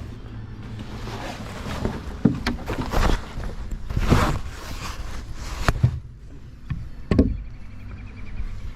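Hand tool chipping and prying at the rotten floor of a boat hull: irregular knocks and scrapes, several in a row, over a steady low hum.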